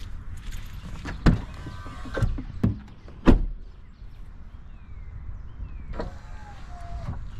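Ford F-150 power-deployable running board (auto step) working: a small electric motor whines as the step moves, with two sharp clunks a couple of seconds apart and a second, falling motor whine near the end.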